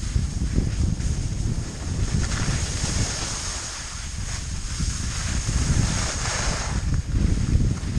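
Wind buffeting the microphone of a skier's point-of-view camera on a downhill run, a steady low rumble, with the hiss of skis sliding and scraping over snow that swells about two seconds in and again around six seconds.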